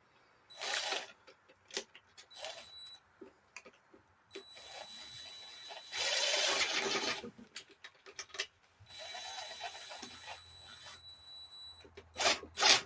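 Small cordless impact running a nut along a bolt's threads in several short runs, the longest and loudest about six seconds in, to test whether the threads are sound; they turn out fine.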